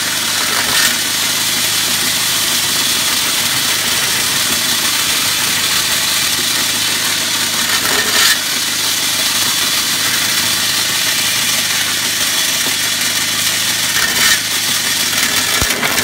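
Rotary chimney-sweep brush spun by a power drill on a flexible rod, scrubbing soot out of a black steel stovepipe section. The drill runs steadily, and the nylon bristles rasp against the inside of the pipe, with a few brief louder scrapes.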